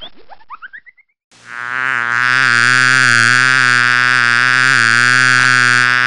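A few quick rising chirp sound effects in the first second, then after a short gap a long, steady, buzzy synthesized tone with a slight waver: a cartoon honey bee's buzz.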